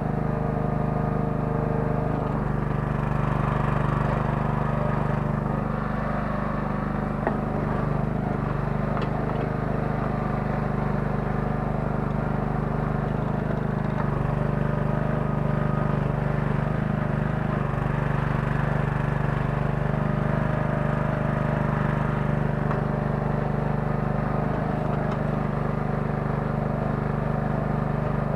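Kellfri towable mini excavator's 9 hp engine running steadily as the machine digs, with small rises and falls in level and one sharp click about seven seconds in.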